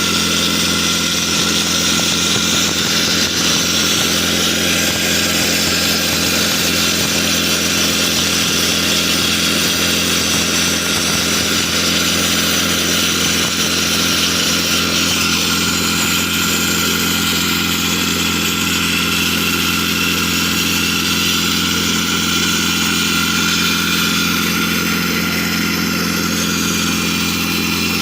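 Automatic rock-drilling rig running steadily as it bores a hole into sandstone, a loud, constant machine noise with an even engine hum under it.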